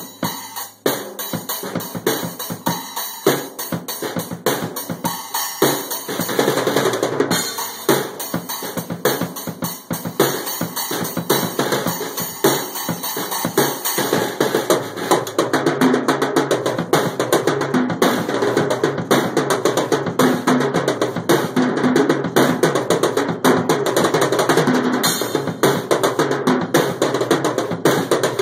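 Drum kit played hard and fast for a sound check, with snare and bass drum hits under a constant wash of cymbals; the playing turns busier and more continuous about six seconds in.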